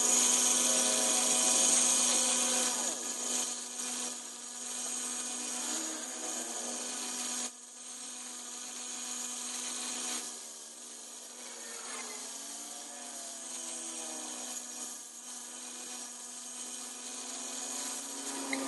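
Bench grinder running with a steady hum while a small steel piece is pressed against its grinding wheel, giving a hissing grind. The grinding is loudest for about the first seven seconds, drops off suddenly, and goes on more quietly as lighter rasping.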